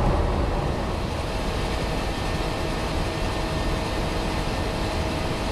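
Steady rush of airflow and engine noise on the flight deck of an Airbus A330 in flight after take-off, with a faint steady hum running through it.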